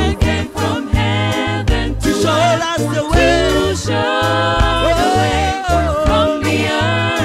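Live gospel band playing a reggae medley: sung lead and backing vocals over keyboard, drums, electric guitar and a pulsing bass line.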